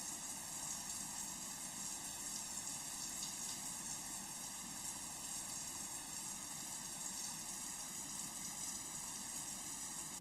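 Running water, a steady spraying hiss, that cuts off suddenly at the end.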